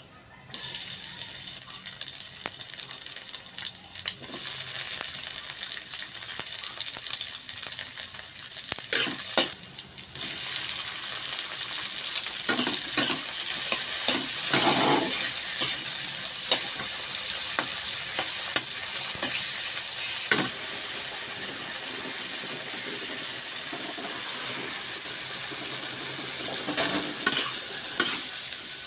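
Oil sizzling in a wok as garlic, onion and tomato are sautéed, starting suddenly about half a second in, while a metal spatula scrapes and taps the pan. Near the end, sliced bitter gourd is stirred in the hot oil.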